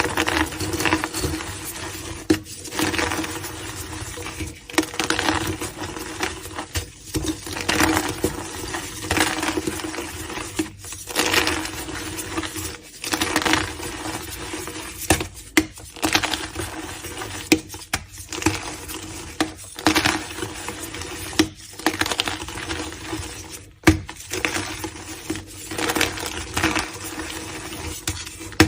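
Blocks of gym chalk being crushed and crumbled, a continuous run of dry crunching with sharper cracks every second or so.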